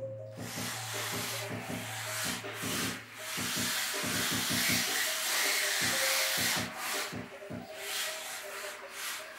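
WLToys K989 micro RC drift truck sliding across a smooth floor sheet: a steady rubbing hiss of the tyres scrubbing sideways, swelling and dipping as it drifts in and out of turns.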